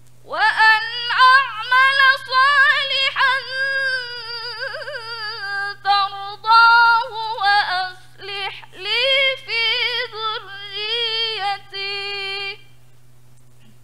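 A woman reciting the Quran aloud in the measured murattal style through a microphone: melodic phrases with long held and gliding notes, stopping about a second before the end. A steady low electrical hum runs underneath.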